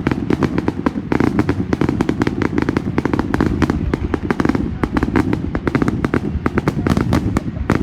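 Fireworks going off as a dense, continuous crackle of many rapid sharp cracks and bangs, loud throughout.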